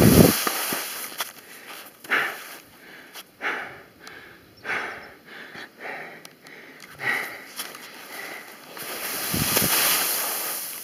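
Skis scraping over the snow in a series of turns, each turn a short hiss. Wind rumbles on the microphone at the start and swells again near the end.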